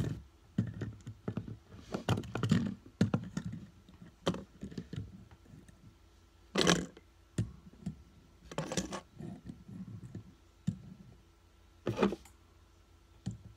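Metal and plastic fidget spinners being set down and stacked on one another on a tabletop: irregular small clicks and metallic clinks, with a few louder clacks.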